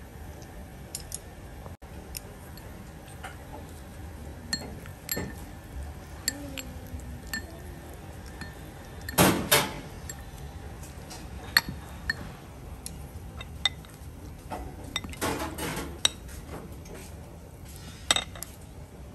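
Kitchen handling sounds: scattered light clicks and clinks of dishes and utensils, with a few louder bursts of handling noise about nine seconds in and again around fifteen seconds.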